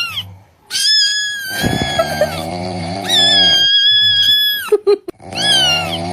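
Cat-meme sound effects: several long, high-pitched, wavering cat-like cries over a lower growling tone, each dropping in pitch at its end, with short breaks between them.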